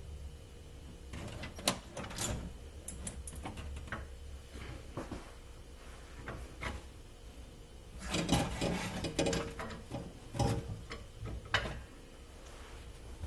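Scattered clicks and knocks of hand work on a fuel tank being lowered from under a minivan, with a burst of clattering and rattling about eight seconds in, then two more sharp knocks.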